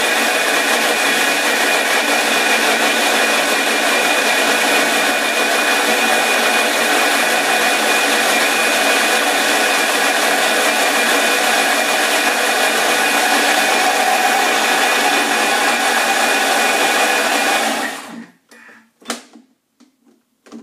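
Thermomix TM31 running at speed 7, its blade chopping lemon zest into the liquid lemon curd mixture with a loud, steady whir. The motor winds down and stops about 18 seconds in, followed by a few short knocks.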